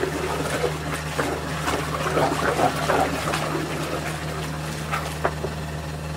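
Liquid trickling and sloshing in a large steaming wok of oil-tea broth, over a steady low hum with scattered faint clicks.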